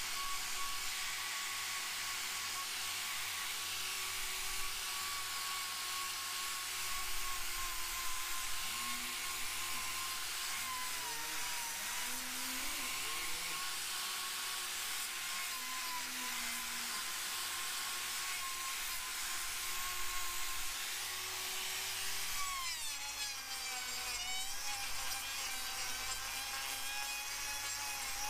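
Angle grinder with a trimming disc running with a steady high whine, grinding down the horn of a cow's hoof. Its pitch dips several times as the disc is pressed in, most deeply a little over 20 seconds in.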